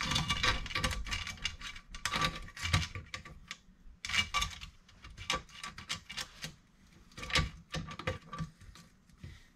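Steel saw chain clicking and rattling as its links are worked onto the groove of a chainsaw guide bar, with many quick, irregular metallic clicks.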